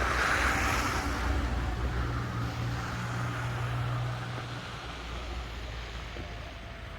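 A vehicle's engine hum with a rushing hiss, fading away gradually; the low hum stops about two-thirds of the way through.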